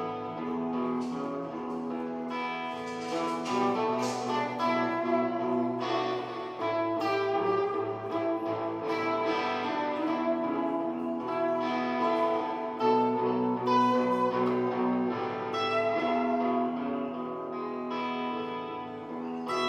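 Electric guitar playing picked note lines over a steady backing of held bass and chord tones that change every couple of seconds.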